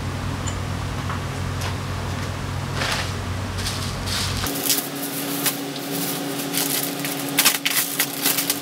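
Plastic parts bag crinkling and crackling in quick sharp bursts as it is torn open and handled to take out a new scooter drive belt. Before that, a steady low workshop hum with a few light clicks.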